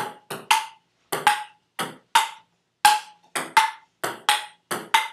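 Table tennis rally: the ball clicking off the table and the paddles in quick, fairly even alternation, about three clicks a second, each with a short hollow ring.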